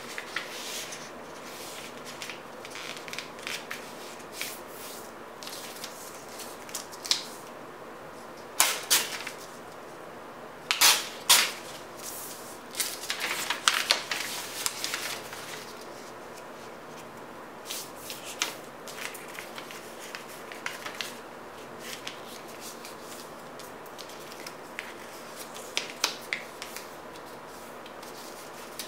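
Sheet of A4 paper being folded and creased by hand: irregular rustling and crisp crinkles as the paper is lifted, folded over and pressed flat. The loudest crinkles come in a few clusters near the middle, with softer rustles toward the end.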